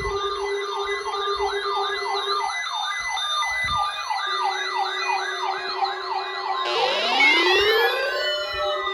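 Electronic sirens: a fast yelp sweeping up and down about three times a second over a steady low tone. Near the end, several more siren wails come in, rising and falling in pitch over one another.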